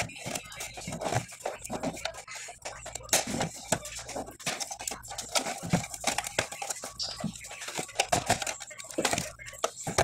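Plastic housing of a Panasonic landline phone being handled and worked apart by hand during disassembly: irregular clicks, knocks and scrapes of plastic against plastic and the desk.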